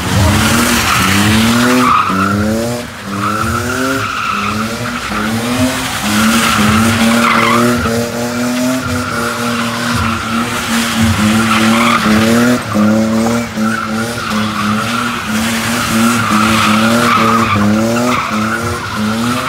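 BMW E30 coupe doing donuts, its tyres squealing steadily as it slides. The engine revs up again and again in rising pulls and is held high, with brief dips in between.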